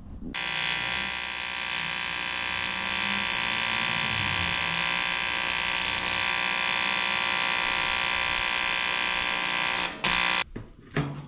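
TIG welding arc from an ARCCAPTAIN 200P AC/DC TIG welder, running steadily for about nine seconds. It stops, then strikes again briefly for about half a second.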